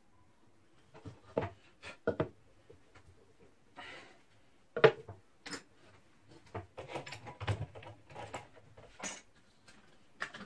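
Irregular knocks and clatter of hard objects being handled, with a dozen or so sharp hits, the loudest about five seconds in, and a brief scrape shortly before it.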